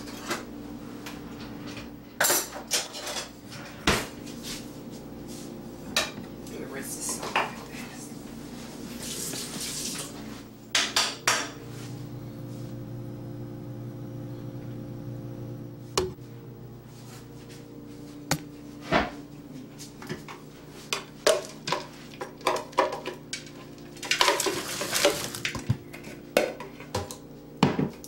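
Wooden spoon knocking and scraping against a blender jar and a glass mixing bowl as ground cashew meal is scooped out: a string of irregular clicks and knocks with a few short scraping rushes.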